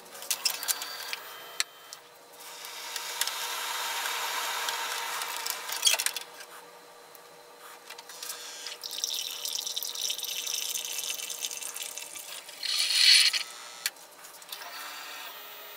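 Keurig single-cup coffee brewer dispensing coffee from a refilled K-cup into a glass mug: a stream of liquid pours and sputters in two long hissing stretches, and a short loud hiss comes near the end.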